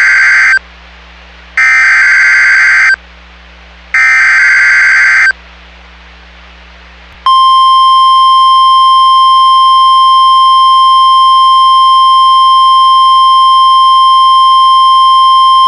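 NOAA Weather Radio Emergency Alert System signal. First come the end of one and then two more bursts of the SAME header's digital data tones, each about a second and a half long. After a two-second pause, the steady 1050 Hz warning alarm tone begins about seven seconds in and holds.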